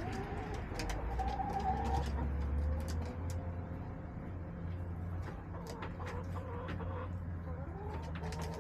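Backyard hens calling with long, wavering, drawn-out notes, over scattered sharp ticks and a steady low hum.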